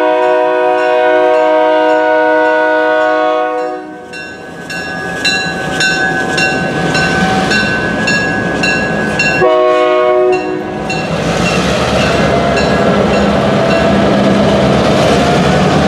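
Diesel locomotive multi-chime air horn sounding a long chord that ends about four seconds in, then a bell ringing rapidly with a short second horn blast about ten seconds in. Over the last few seconds the locomotives' diesel engines run loudly as they pass close by, with the bell still ringing.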